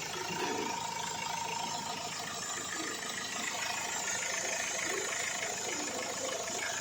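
Mahindra XUV500's 2.2-litre mHawk four-cylinder diesel engine idling steadily after its overhaul.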